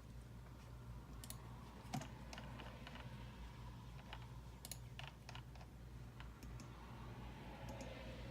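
Faint, irregular computer keyboard typing and clicks over a steady low electrical hum.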